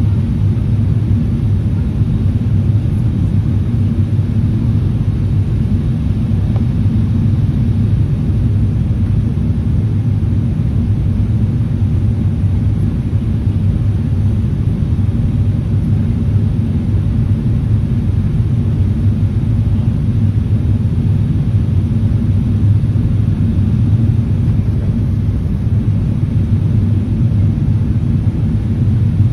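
Airliner cabin noise during descent: the steady low rumble of jet engines and airflow, heard from inside the cabin at a window seat over the wing.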